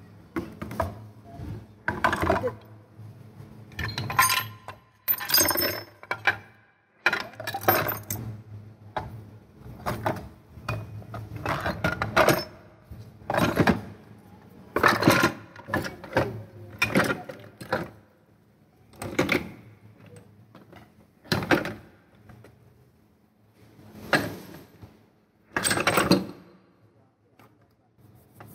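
Metal engine parts, aluminium crankcase halves, gears and shafts of a small motorcycle engine, clattering and clinking as they are handled and set down in a plastic tub: many irregular knocks and rattles, a second or two apart.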